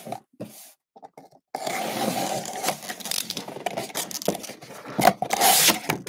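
Cardboard shipping box being cut open with a box cutter and its flaps pulled apart: continuous scraping and tearing of tape and cardboard with sharp clicks, starting about a second and a half in after a few short scrapes.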